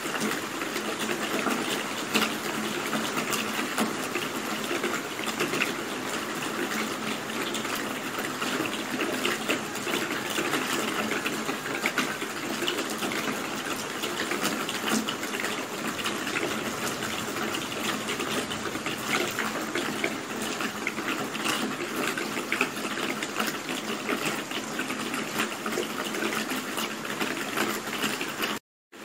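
Steady rain falling: an even hiss with many small drops ticking through it. The sound cuts out for a moment near the end.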